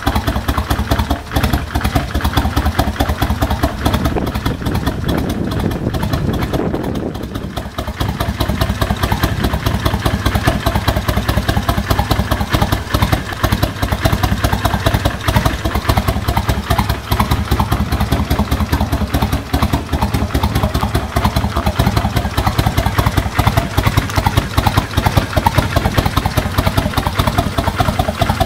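Kawasaki Vulcan 1500 Classic V-twin engine, fitted with a Kuryakyn Hypercharger air intake, idling with a steady rapid pulse. Its level dips briefly about seven seconds in.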